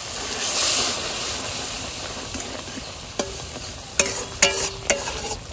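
Masala paste frying in oil in a metal kadai, sizzling as it is stirred with a metal spatula. In the second half the spatula scrapes and knocks against the pan several times.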